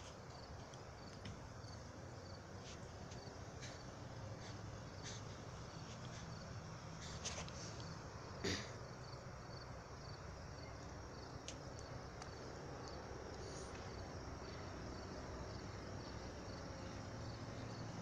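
A cricket chirping in a steady, evenly spaced pulse, over a low vehicle hum that builds slowly toward the end. Two brief sharp clicks stand out near the middle, the second the loudest sound.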